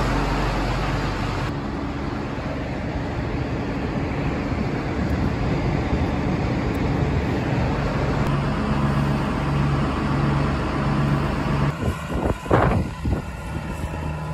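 A tractor's diesel engine running steadily, a low hum that throbs on and off for a few seconds in the middle. Near the end, gusts of wind buffet the microphone.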